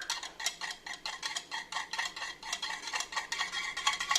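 Eggs being beaten in a bowl: a utensil whisks through the raw eggs with rapid, even clicking strokes against the bowl.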